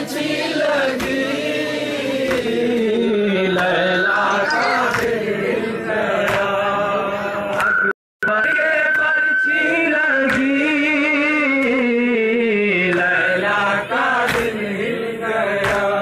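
Men's voices chanting a nauha, a Shia mourning lament, with sharp slaps of matam (chest-beating) about once a second. The sound cuts out completely for a split second about eight seconds in.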